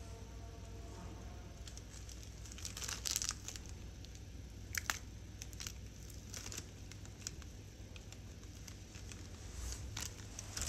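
Thin plastic food bag crinkling in several short bouts as it is handled and squeezed to pipe minced meat into pasta tubes.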